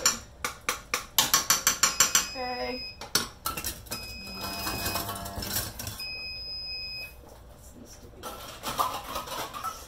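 A spoon clacking and scraping against a stainless-steel stockpot as thick, boiling chutney is stirred, a fast run of knocks in the first two seconds. After that, a high electronic beep sounds in three short spells.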